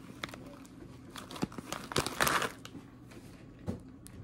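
Plastic snack packet of Nimco chili chips crinkling as it is handled, with scattered crackles and a louder rustle about two seconds in.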